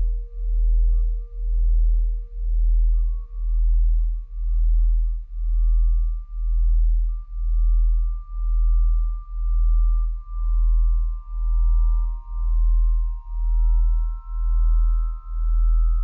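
Electronic ambient soundtrack: a very deep pulse throbbing about once a second under faint, steady sine-like tones that slowly change pitch, with new higher tones joining about ten seconds in.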